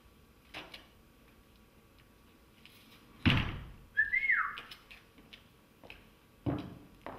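A wooden barn door shuts with a heavy thud about three seconds in. A short high squeak follows, stepping up and then sliding down. Softer single knocks come before and after.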